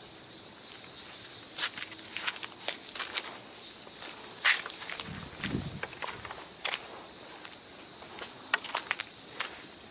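A steady, high-pitched chorus of insects, with irregular clicks and crunches of footsteps on the trail.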